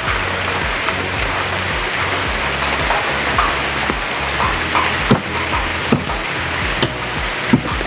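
Background music with a repeating low bass pattern over a steady rain-like hiss. Four sharp knocks come about a second apart in the second half.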